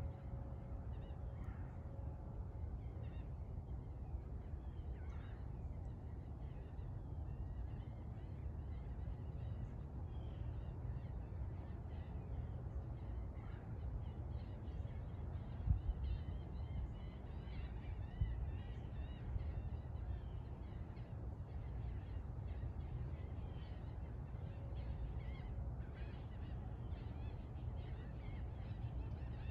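Distant birds calling and chirping over a steady low rumble. A brief knock comes about halfway through, and another about two seconds later.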